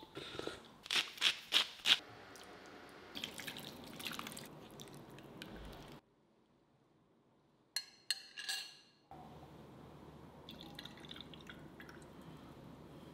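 Liquid in a glass bowl of green peppercorn broth: four sharp drips in quick succession about a second in, then a soft sloshing. After a pause, a few brief splashes of the broth, then only faint room tone.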